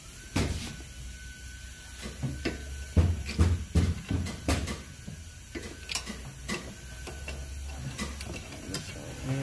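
Irregular metallic clinks and knocks of a wrench being fitted to and worked on the 18 mm rear brake caliper bracket bolts, with a cluster of sharper knocks around the middle, over a steady low hum.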